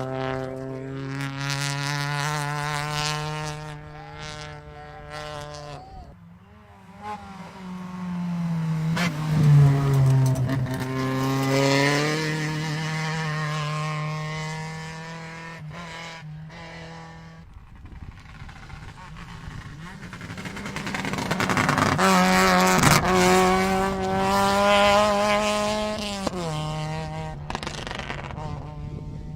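Rally cars at full speed on a special stage: the engines rev hard through the gears, and the engine note drops sharply as each car goes by, twice clearly.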